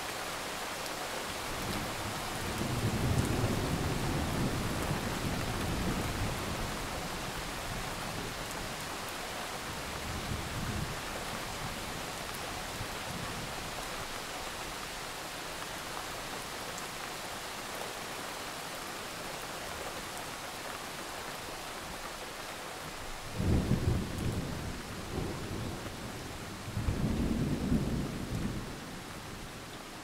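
Steady rain with thunder: a long low rumble a few seconds in, a fainter one around ten seconds, and two louder peals close together near the end.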